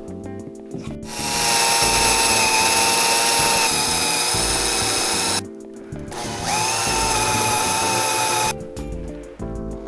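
Cordless drill boring holes into a wood-grain cabinet panel: two runs with a steady whine, the first about four seconds long starting a second in, the second about two seconds and rising briefly in pitch as it starts. Background music underneath.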